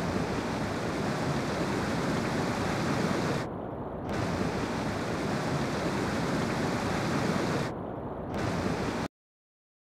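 Steady rushing water noise, an underwater ambience, that turns muffled twice for about half a second: once about a third of the way in and again near the end. It starts and cuts off abruptly.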